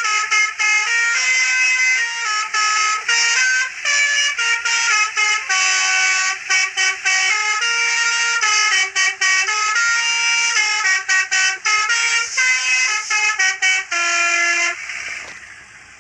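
Basuri multi-tone air horn playing a fast 'telolet' tune: a quick run of short, steady notes stepping up and down in pitch. Near the end it breaks off into a fading hiss.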